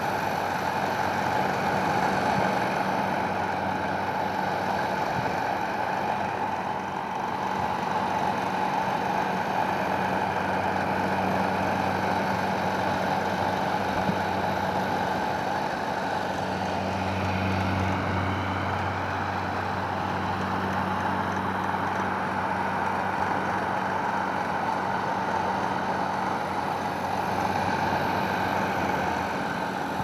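Vintage Handy Hannah metal electric hair dryer running: a steady whir of its motor and fan blowing air, with a low electric hum underneath.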